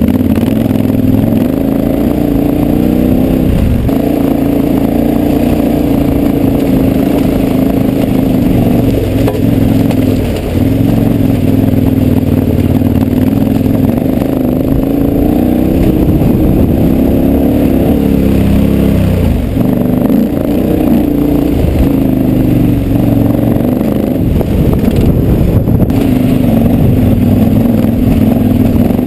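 KTM 1190 Adventure R's V-twin engine pulling up a loose gravel climb. Its note rises and falls as the throttle is rolled on to keep the rear tyre from spinning out, with gravel crunching under the tyres and wind on the microphone.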